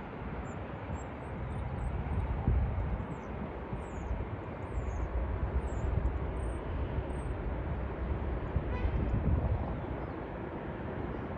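Jet airliner's engines rumbling in the distance as it rolls out along the runway just after touchdown, a steady low roar that swells a little twice.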